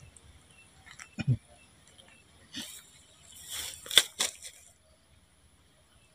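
A few brief rustles and knocks close to the microphone: two low thumps about a second in, then a cluster of rustling near the end with one sharp click, the loudest sound. A faint steady high insect drone sits underneath.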